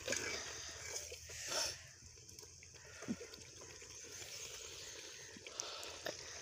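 Chicken korma simmering in a metal pot over an open wood fire, a faint steady hiss with a few scattered clicks. A steel ladle stirs and scrapes against the pot in the first couple of seconds.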